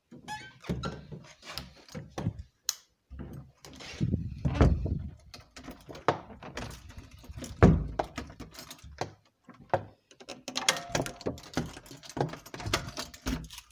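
Irregular knocks, clicks and thumps of metal fittings being handled and shifted by hand, mixed with handling noise from the handheld camera; the heaviest thumps come about four and a half seconds in and again near eight seconds.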